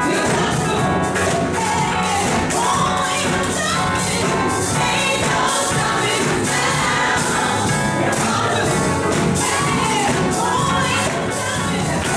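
Gospel music: a choir singing over a steady beat.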